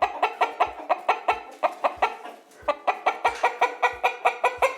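Hen clucking in a fast run of short calls, about five a second, with a brief break about two and a half seconds in.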